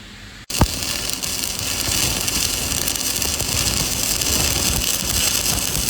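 Stick (electrode) welding arc struck about half a second in, then a steady crackling hiss as the electrode burns in: the first, higher-current pass of a fillet weld.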